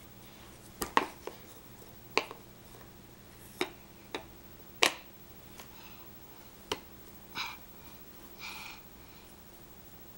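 Wooden peg-puzzle pieces clicking and clacking as a toddler handles them and knocks them against each other and the board: about nine sharp knocks at irregular intervals, then two softer, brief sounds near the end.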